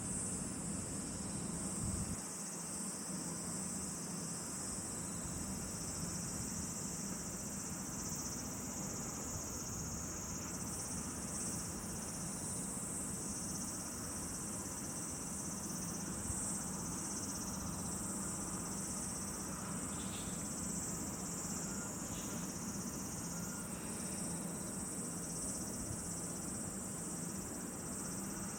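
Steady, high-pitched chorus of insects calling without a break, over a low steady background hum.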